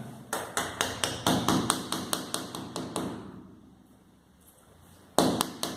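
Rubber mallet tapping plastic wall plugs into holes drilled through wall tile: a quick run of light taps, about four a second for some three seconds, then after a pause a louder strike near the end.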